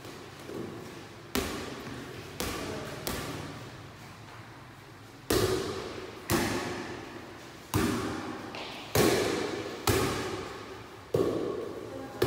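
Light air volleyball being struck back and forth by hand: about nine sharp slaps at irregular spacing, each echoing in the hall.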